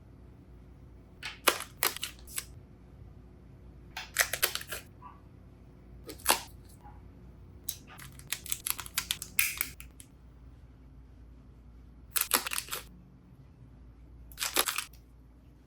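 Unboxing handling noise: packaging and small plastic parts clicking and rustling in about six short bursts, with quiet gaps between them.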